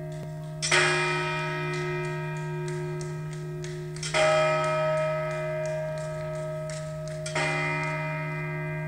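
Bell tolling slowly, three strokes about three and a half seconds apart, each ringing on and fading over a steady low hum.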